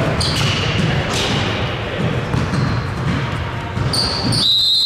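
Indoor basketball game sounds in a gym hall: the ball bouncing on the court, sneakers squeaking and players' voices, with a steady high whistle starting about four and a half seconds in.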